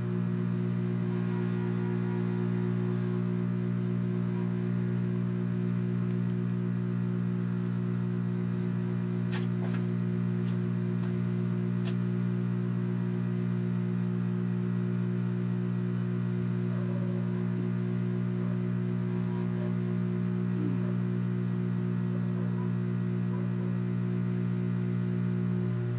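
Steady low electrical hum from a CRT television's speaker, tuned to channels that show no picture. There are a couple of faint clicks about ten and twelve seconds in.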